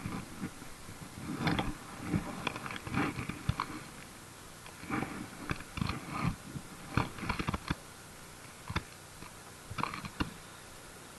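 Handling noise close to the microphone: irregular crunchy rustles and sharp clicks in short clusters, from a gloved hand and the spinning rod being handled, fading out near the end.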